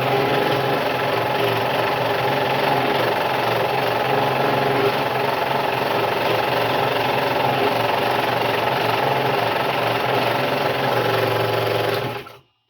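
Scroll saw running steadily with its blade cutting through wood, a constant mechanical buzz; it is switched off near the end and winds down quickly.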